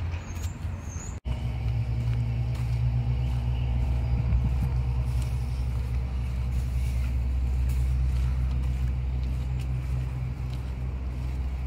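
An engine running steadily with a low, even rumble. The sound cuts out for an instant about a second in.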